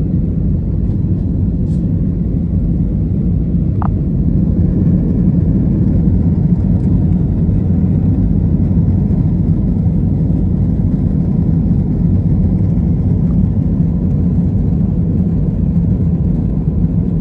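Airbus A320neo cabin noise in the climb after takeoff: a steady low rumble of the engines and airflow, heard from inside the cabin.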